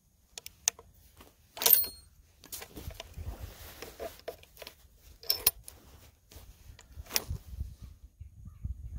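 Metallic clicks and clinks as a .45-70 Sharps falling-block rifle is loaded by hand: a cartridge is slid into the open breech and the breech block is shut. The loudest sound is a ringing metal clink near two seconds in, with sharper clicks about five and seven seconds in.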